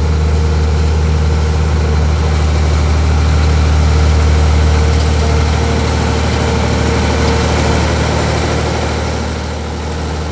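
Heavy engine running steadily at idle, a deep, loud hum that eases off slightly near the end.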